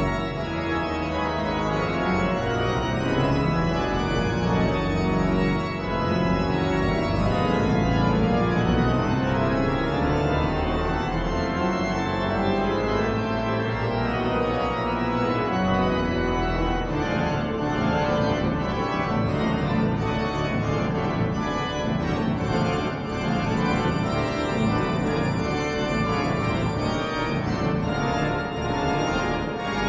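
Pipe organ playing loud, full sustained chords over a heavy bass. From about 17 seconds in, the texture breaks into quick repeated figures.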